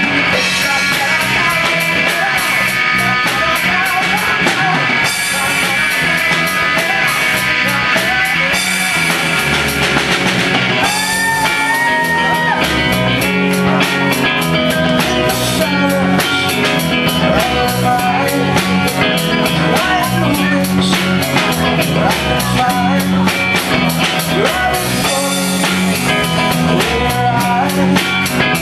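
Rock band playing: electric guitar, bass and drum kit with a steady beat.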